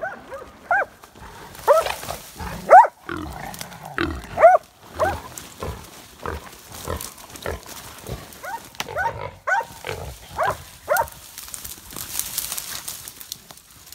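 Wild hog squealing in short, repeated cries while caught by hunting dogs. The loudest squeals come about two to five seconds in, the cries grow fainter and more scattered after that, and brush rustles near the end.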